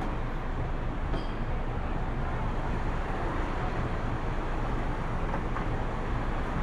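City street traffic ambience: a steady wash of passing vehicles and low urban rumble, with no single event standing out.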